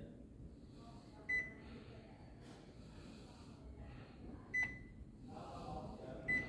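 Key beeps from a Canon imageRUNNER copier's touch-panel control screen as its service-mode buttons are pressed: three short, high beeps, about a second in, past four seconds, and near the end.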